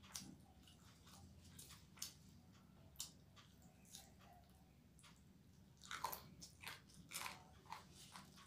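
Close-up eating sounds of biting and chewing a spicy chicken leg with rice: scattered sharp, wet mouth clicks and smacks, coming thicker and louder about six to seven and a half seconds in.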